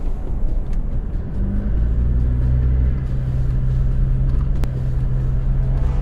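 A car engine running with a low, steady drone that becomes an even hum about two seconds in. There is a single sharp click about two-thirds of the way through.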